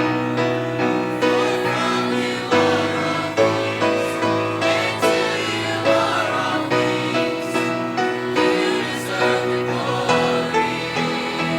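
A choir singing a gospel worship song in sustained harmony.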